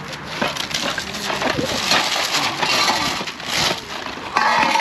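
Crinkling and rustling handling noise with scattered light knocks, from parts of a new sheet-metal smoker grill and their packing being unpacked and handled. There is a louder scraping burst near the end.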